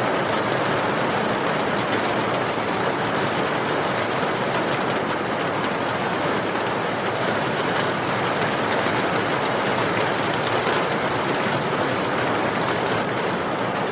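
Steady rain falling, mixed with the crackle of a wood fire in a fireplace.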